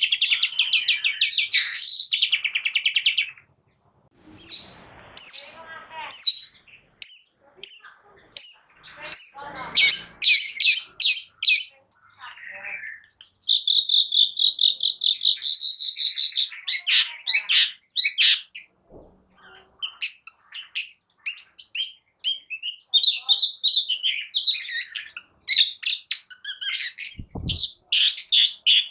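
Long-tailed shrike (cendet) singing a varied, busy song: fast trills, a run of sharp repeated notes and harsher chattering phrases following one another with only short breaks. A brief low thump near the end.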